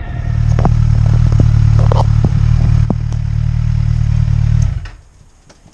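Motorcycle engine idling close by, a steady low drone with a few sharp clicks and knocks over it, stopping abruptly near the end.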